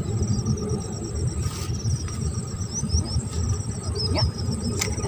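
A rapid, high-pitched chirping trill of insects, over a steady low rumble.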